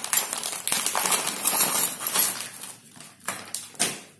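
Plastic packaging crinkling and rustling as it is handled and pulled open, dense at first, then a few separate short rustles near the end.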